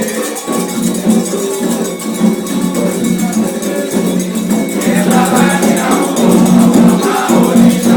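Afro-Brazilian ceremonial music for Xangô: voices singing over a fast, steady shaking of rattles.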